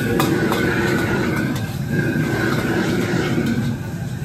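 Gas burner at a wok station giving a steady, loud rushing noise while food is stir-fried to order.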